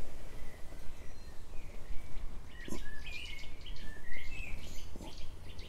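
Songbirds chirping, a run of quick rising and falling calls through the middle, over a low steady outdoor rumble, with a couple of faint taps.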